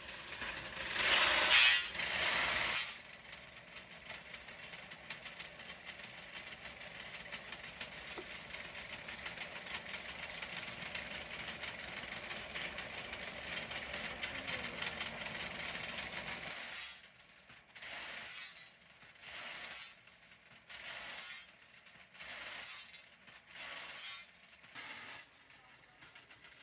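Belt-driven machine cutting steel tube into short pieces, with metallic rattling and clanking. It is loud and harsh for the first couple of seconds, then settles into a steady fine-ticking rattle. In the last ten seconds it breaks into short clanking bursts about once a second.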